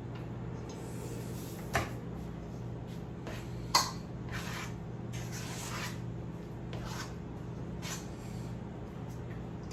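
Kitchen handling noises: two sharp knocks, the second louder, among several brief rustling swishes, over a steady low hum.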